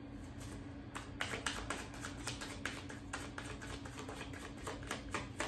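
Tarot cards being shuffled and handled: a quick, irregular run of soft clicks and slaps from about a second in, over a faint steady hum.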